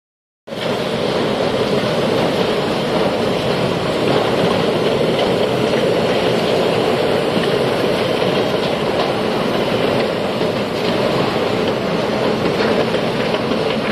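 Plastic bottle unscrambler machine running, with empty flat PET bottles clattering against each other and the steel guides as they feed out onto the conveyor: a steady, dense rattle that starts abruptly about half a second in.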